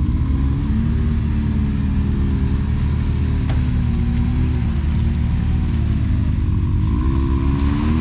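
Can-Am Maverick X3 side-by-side engine running at low revs with its pitch wavering, then revving up briefly near the end. A single sharp tick sounds about halfway through.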